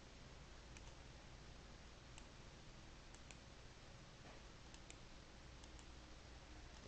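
Faint computer mouse clicks, about eight short sharp ones spaced irregularly, some in quick pairs, over a low steady hum and hiss.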